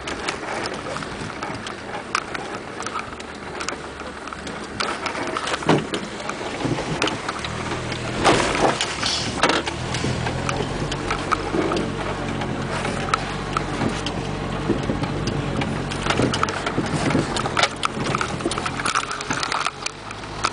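A noisy background full of short knocks and clicks. About seven or eight seconds in, a low, steady motor hum starts and keeps running.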